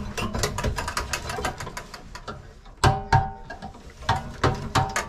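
Irregular clicks, knocks and rattles of wires and sheet metal being handled inside an old fuse panel enclosure. About three seconds in, background music with a steady beat comes in under them.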